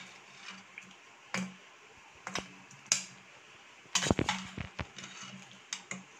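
A kitchen utensil clinking and knocking against a ceramic plate as boiled raw-banana slices are set down on it: about half a dozen separate knocks, with a quick cluster of them about four seconds in.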